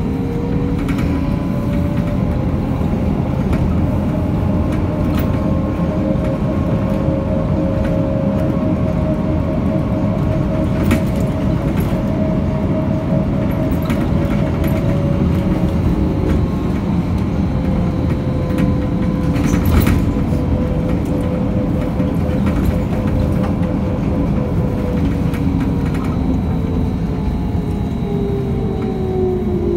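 Ride inside a BKM 321 trolleybus under way: the electric traction drive whines, rising in pitch as it picks up speed at the start, holding steady, then falling as it slows near the end, over a steady road rumble with occasional rattles.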